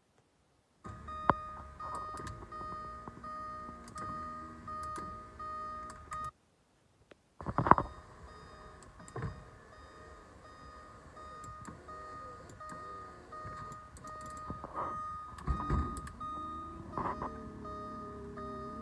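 Porsche 928 electrics freshly powered up: a steady electronic warning tone sounds while small electric motors whir in short runs, with sharp clicks in between. Everything drops out for about a second partway through.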